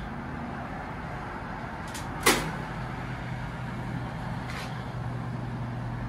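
Steady low hum of road traffic, with a single sharp knock about two seconds in.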